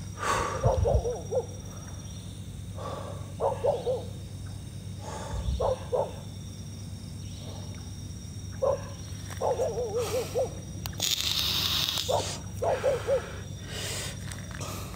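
An animal calling in short bursts of quick, wavering notes, a cluster every one to three seconds. A brief hiss comes about two thirds of the way through.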